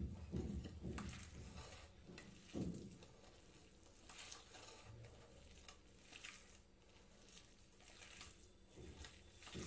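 Hands mixing and squishing a mashed jackfruit and gram-flour mixture in a steel bowl. There are soft rhythmic thumps in the first second or so and one more a little later, then faint squelching and light clicks.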